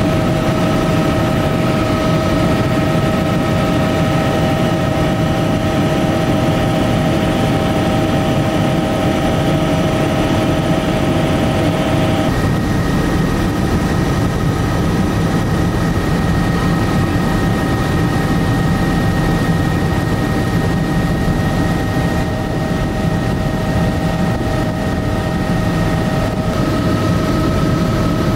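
Helicopter cabin noise: a steady rotor and engine drone with a high whine over it. The whine changes abruptly about twelve seconds in and again near the end.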